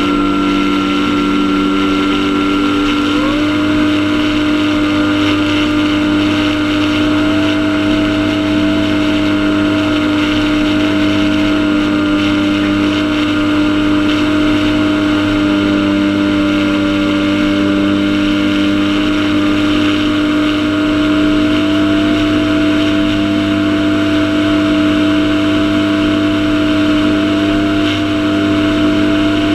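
Radio-controlled airplane's motor and propeller running steadily in flight, heard up close from a camera mounted on the plane. A higher tone steps up a little about three seconds in.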